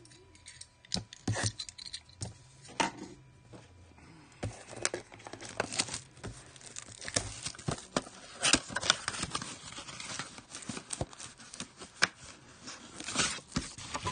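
Clear plastic shrink-wrap being torn and crinkled off a cardboard trading-card blaster box. A few separate sharp clicks come first, then a dense run of crinkling and ripping starts about four seconds in.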